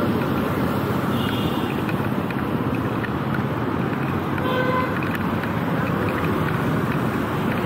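Steady road traffic: auto-rickshaw, motorbike and car engines passing, with a short horn toot about four and a half seconds in.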